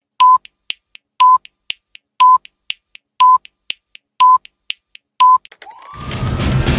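Electronic intro sting of a news bulletin: six short, high, steady beeps, one a second, with faint ticks between them like a timer. Near the end a rising whoosh leads into loud music.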